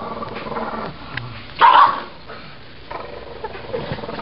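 A pug barking in short outbursts, the loudest bark about one and a half seconds in, with quieter noises after it.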